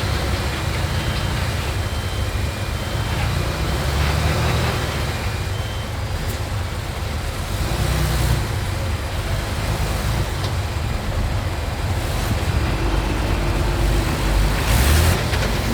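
Diesel engines of earthmoving machines, a bulldozer and dump trucks, running steadily under load. A reversing alarm beeps at an even pace for the first few seconds, and a short burst of hissing noise comes near the end.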